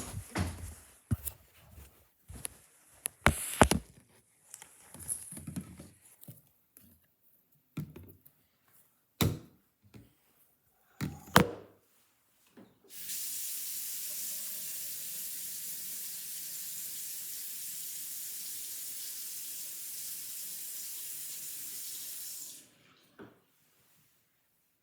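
A run of irregular knocks and clicks, then a steady high hiss lasting about ten seconds that cuts off suddenly, followed by a single click.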